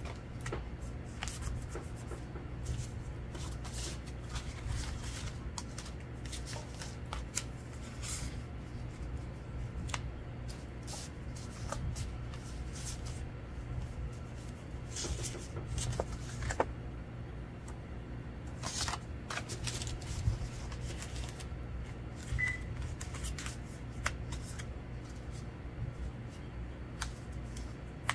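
Paper pieces and a card being handled: scattered rustles and light taps as paper labels are laid on and pressed down by hand, over a steady low hum.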